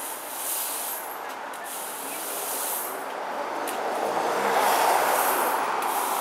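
Broom bristles sweeping across paving slabs, a scratchy hiss in repeated strokes. A passing vehicle swells over it, loudest about four to five seconds in.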